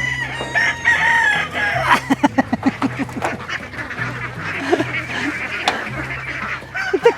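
A flock of ducks calling while being fed, with many overlapping honking calls and, about two seconds in, a quick run of rapid quacks.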